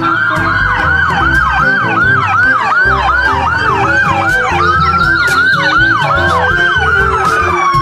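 Police siren in a fast yelp, its pitch rising and falling about two and a half times a second, changing to a slower wail and gliding down near the end.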